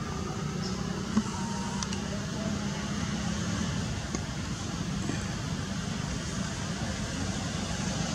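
Steady outdoor background noise with a low hum, and a single short click about a second in.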